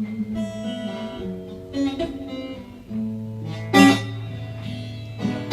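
Acoustic guitar playing a blues accompaniment between vocal lines: sustained chords and bass notes, with a hard strummed chord about four seconds in.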